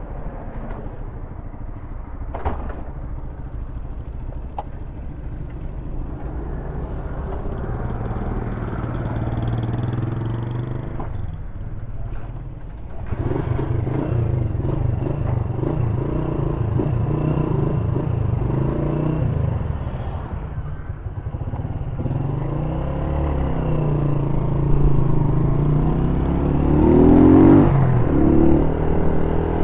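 1999 Honda CG Titan's single-cylinder four-stroke engine running as the motorcycle rides through town, its note dipping and climbing with throttle and gear changes, and rising near the end as it accelerates.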